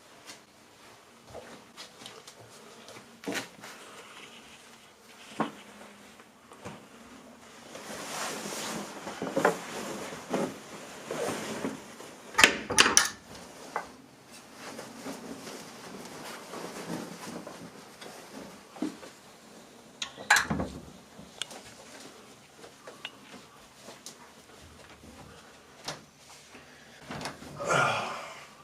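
Clothes rustling and handling noises as a tuxedo jacket and shirt are pulled off, with scattered clicks and a few sharp knocks, and heavy breathing and grunts in between.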